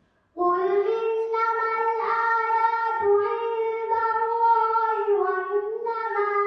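A girl's solo voice singing unaccompanied through a microphone: one long melodic line of held notes that slide between pitches, starting after a short pause about half a second in.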